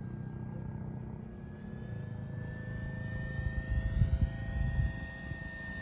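Radio-controlled Blitzwork Cessna 182 model plane flying overhead: a steady motor-and-propeller whine whose pitch rises slowly. Low buffeting on the microphone swells about three to five seconds in and is the loudest part.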